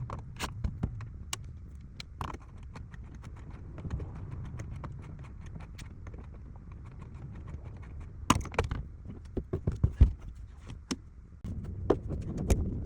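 A series of irregular clicks and knocks over a steady low hum, thickest in a quick cluster about two-thirds of the way through, with one sharp knock the loudest.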